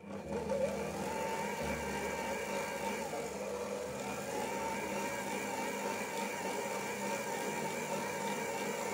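Stand mixer motor starting up and then running steadily, its flat beater turning through a thick, sticky yeast dough as dried fruit and nuts are mixed in.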